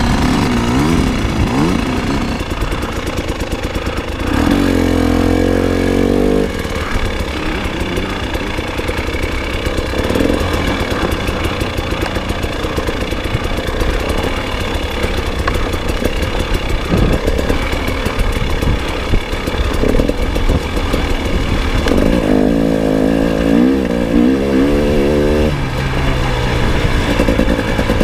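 Dirt bike engine running as the bike rides along a rough trail, heard from on the bike itself. The engine note changes and wavers twice, about four seconds in and again near the end, as the revs rise and fall.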